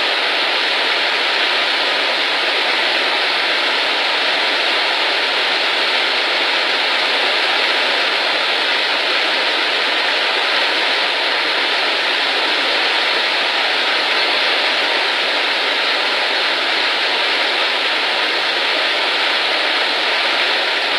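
Waterfall running full in the rainy season, a loud steady rush of falling water with no breaks.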